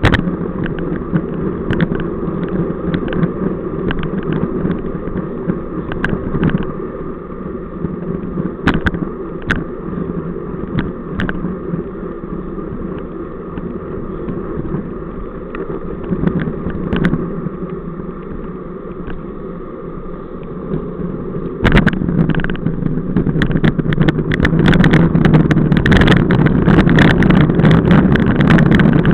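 Wind rumble and road noise on a bike-mounted camera microphone while riding a road bike in a group: a steady rumble with scattered clicks and rattles, growing louder about three-quarters of the way through.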